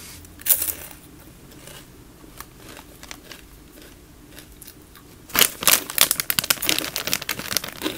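A crisp crunch as a dried okra chip is bitten about half a second in, faint chewing, then from about five seconds on a foil snack bag crinkling loudly as it is handled.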